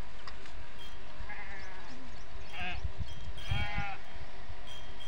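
Livestock bleating, three wavering calls about one and a half, two and a half and three and a half seconds in, over a steady low rush of wind on the microphone.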